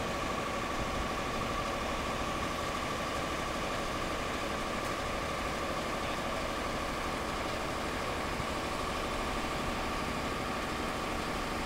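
A steady engine drone with a constant high-pitched whine over it, holding one level throughout.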